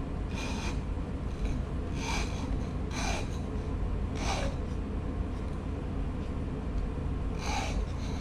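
Small file rasping at a notch in a wooden guitar brace, about five short separate strokes with pauses between them, over a steady low hum.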